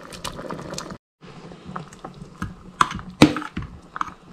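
A fork scraping and tapping on a plastic cutting board as chunks of raw bluefish are pushed off it into a pot of simmering stock, a run of sharp irregular clicks that is loudest near the end. The sound cuts out for a moment about a second in.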